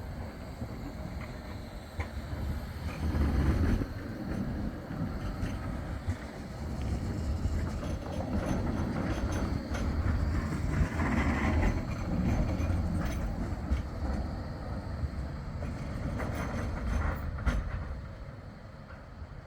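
Bombardier Flexity 2 tram running along street track: a low rumble of wheels on rail that swells twice, with a few sharp clicks near the end.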